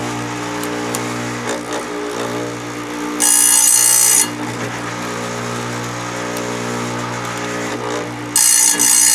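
Electric chainsaw sharpener's motor running with a steady hum, its abrasive wheel grinding a chain cutter twice: a loud, high grinding for about a second, about three seconds in and again near the end.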